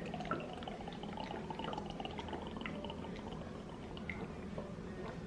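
A ready-to-drink protein shake being chugged, the liquid glugging quietly as it is gulped down.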